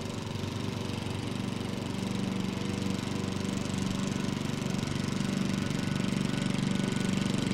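Gas-powered walk-behind lawnmower engine running steadily, growing slightly louder over the stretch.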